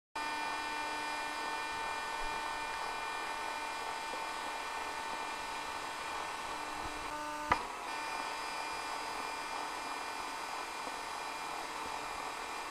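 A steady mechanical hum with a high whine of several fixed tones over a faint hiss, and one sharp knock about seven and a half seconds in.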